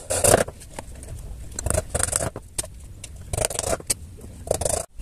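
Hammer striking nails into plywood panels, a quick run of blows, then irregular knocks and rubbing of wood as the plywood box is handled.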